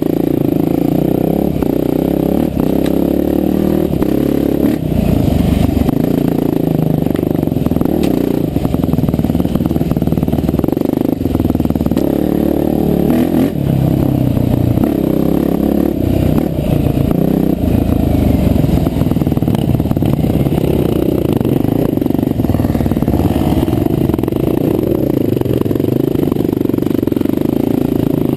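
Off-road dirt bike engine running close up, its revs rising and falling as it climbs and rides a rough single track, with clatter and knocks from the bike over the bumpy ground.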